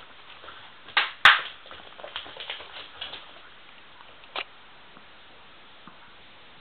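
Puppies scuffling and play-fighting on a wooden floor: two sharp knocks about a second in, the loudest sounds, then lighter scrabbling and taps, which die away after about four and a half seconds to quiet room noise.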